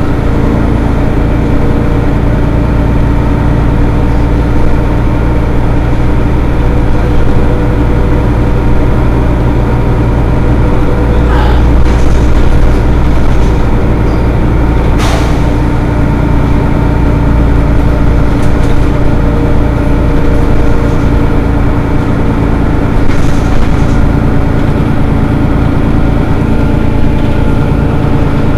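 Mercedes-Benz Citaro city bus idling at a stop, its engine giving a steady low hum, with a brief sharp air hiss about halfway through.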